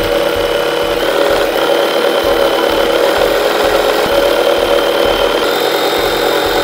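Janome electric sewing machine running steadily at speed, stitching a seam through layers of cotton fabric.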